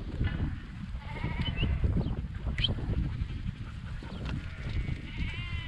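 Dohne-cross sheep bleating in the yards: a few bleats, one about a second in and a longer, wavering one near the end, over a steady low rumble.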